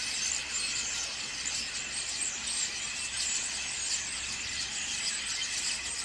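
A flock of common starlings chattering: a dense, steady mass of short clicks, rattles and whistles with no pause.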